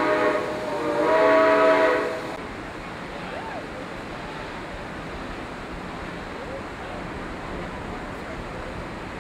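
Steam locomotive whistle blowing two blasts, the first ending just after the start and the second lasting about a second. After that, a steady rushing noise.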